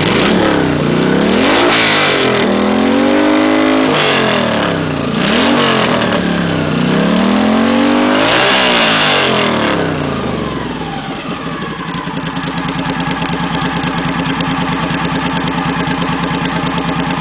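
Moto Guzzi 750 V-twin race engine with an open, unbaffled 2-into-1 reverse-cone megaphone exhaust, revved up and down several times in long sweeps, then dropping back to a steady, lumpy idle about ten seconds in.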